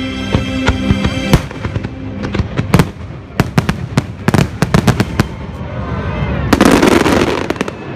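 Fireworks shells bursting in quick succession, a string of sharp bangs over the show's orchestral score, which fades out about two seconds in. Near the end comes about a second of dense, loud crackle.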